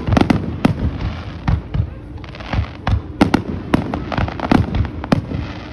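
Fireworks display: aerial shells bursting overhead in a rapid, uneven run of more than a dozen sharp bangs and booms.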